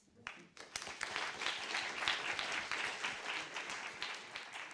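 Audience applauding: many hands clapping, swelling quickly just after the start and gradually thinning toward the end.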